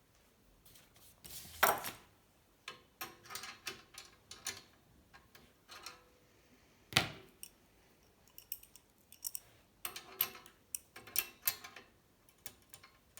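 Hand tools working on a steel bicycle frame during cold setting: irregular metallic clicks and ticks, with two louder knocks about two and seven seconds in.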